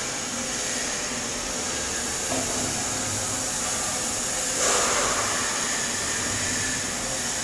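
Stick welding (SMAW) arc burning on an E7018 rod during a capping pass: a steady frying hiss, briefly louder about five seconds in, over a faint steady hum.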